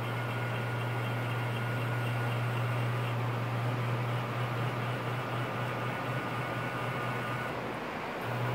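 Kitfox's electric trim servo motor running: a steady low hum with a faint higher whine. It stops about seven and a half seconds in, then runs again briefly near the end.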